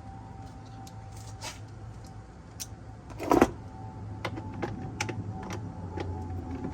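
Scattered light clicks and taps of a socket wrench and the plastic air filter housing being handled, with one louder knock about three seconds in, over a steady low hum.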